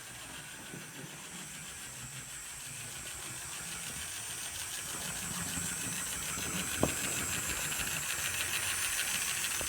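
Hornby OO gauge model locomotive running on track: its small electric motor and wheels whir steadily, growing louder as it speeds up. A single sharp click sounds about seven seconds in.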